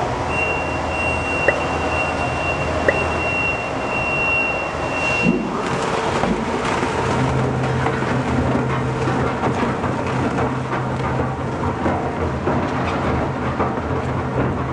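Twin-shaft industrial shredder running with a steady low hum while its toothed rotors tear through cardboard boxes and paper in a dense noisy crackle. There are two sharp clicks in the first three seconds, and the sound changes about five seconds in.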